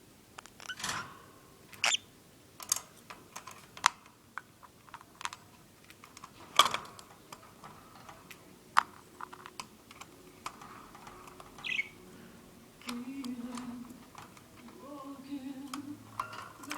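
Budgerigar chattering: a string of sharp clicks and short chirps, with some lower warbling near the end.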